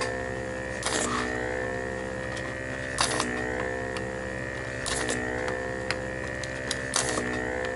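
Vacuum pump of a homemade desoldering iron humming steadily, with a short hiss of suction about every two seconds, four times, as each solder joint is sucked clear. The pump's pitch sags briefly with each hiss.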